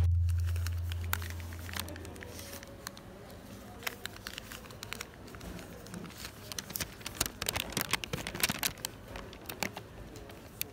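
Thin plastic bag and paper food wrapper crinkling and rustling as they are handled and opened, in irregular bursts of crackles that come thickest past the middle. It opens on the tail of a deep boom fading out over about two seconds.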